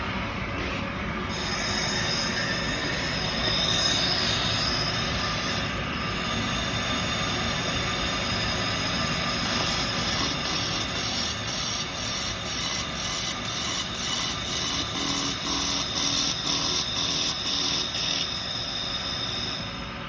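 Handheld laser welder pulsing as it welds galvanized steel pipe with filler wire: a steady high-pitched whine and buzz that starts about a second in, then turns into regular pulses about two a second through the middle stretch.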